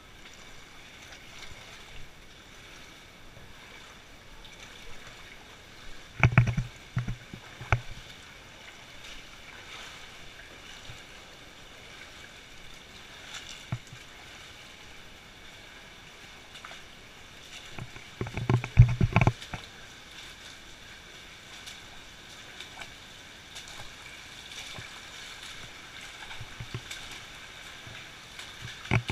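Feet wading and splashing through a shallow cave stream, with two clusters of loud splashes about six and eighteen seconds in, over a steady hiss of moving water.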